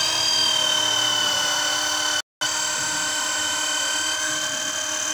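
Handheld electric drill running steadily with a high motor whine, working against the shaft of a monoblock pump motor; the pitch sags slightly under load. The sound cuts out completely for a moment about two seconds in.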